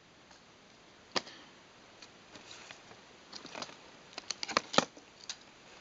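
Plastic Bakugan toy figures being handled and set down: one sharp click about a second in, then a run of small clicks and taps near the end.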